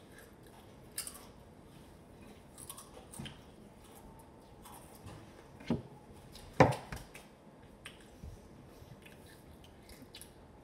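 Crunching and chewing of Takis rolled tortilla chips, with scattered small crisp clicks and one sharper knock a little past the middle.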